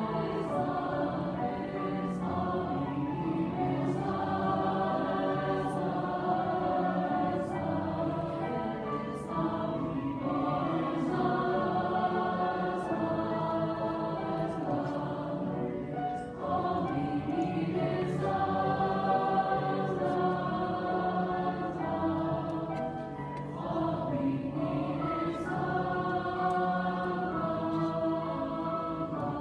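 Large high school choir of young men's and women's voices singing together, holding long notes.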